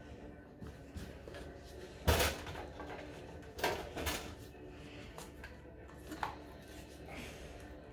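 Toy blaster being worked: a few sharp hard plastic clacks, the loudest about two seconds in and two more close together about a second and a half later.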